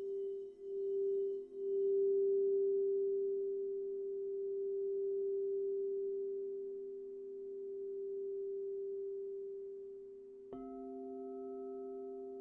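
Crystal singing bowls ringing with a steady hum that wavers for the first couple of seconds, then slowly fades. About ten and a half seconds in, a sharp strike on a bowl adds a brighter ring with higher overtones.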